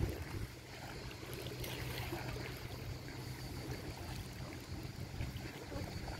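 Sea water noise over a steady low hum.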